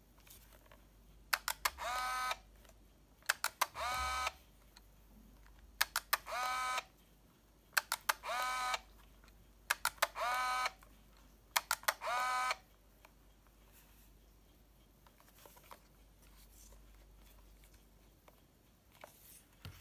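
Olympus Trip AF 51 compact 35mm film camera fired six times, about every two seconds: each time a few quick clicks of the shutter, then a short pitched whir of the motor winding the film on.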